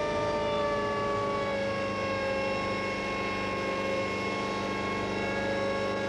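Helicopter cabin noise from a Hummingbird helicopter powered by a Donovan drag-race V8 engine: engine and rotor drivetrain running as a steady whine of several tones. The pitch sags slightly in the first two seconds, then holds steady.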